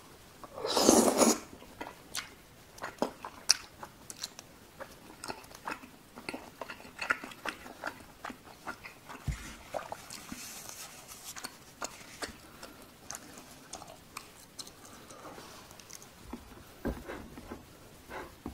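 Close-up eating sounds of cheese tteokbokki: a loud slurp about a second in, then wet chewing with many small mouth clicks.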